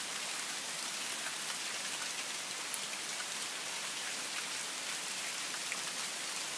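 Steady rain falling on dense leafy vegetation: an even hiss, with scattered faint ticks of individual drops.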